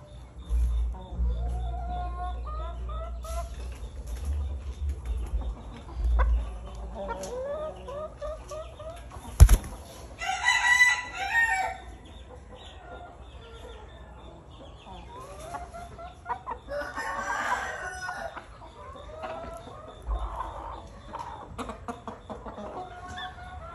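Chickens clucking throughout, with a rooster crowing twice, about ten seconds in and again around seventeen seconds. A single sharp knock comes just before the first crow.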